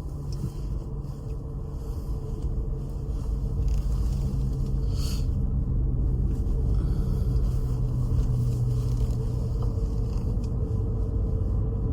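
Steady low rumble of a car in motion, heard from inside the cabin: engine and road noise with a constant hum.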